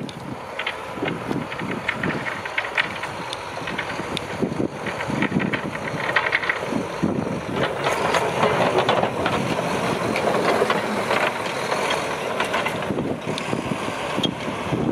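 Mack snowplow truck approaching and passing: its diesel engine running with the steel front and wing plow blades scraping through the snow, getting louder and loudest as it goes by about halfway through, then fading slightly as it pulls away.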